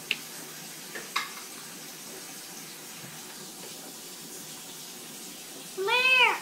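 A toddler's short wordless call near the end, rising then falling in pitch, over a steady background hiss. Two short high squeaks come earlier, one at the very start and one about a second in.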